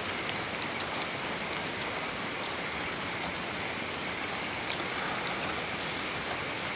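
Steady chorus of night insects, crickets trilling in a constant high tone with a faint regular pulse, over an even background hiss.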